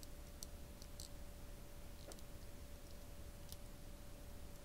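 Faint small clicks, a handful spread over several seconds, from a capacitor being handled in the plastic tweezer test clip of a handheld LCR meter. A faint steady tone runs underneath.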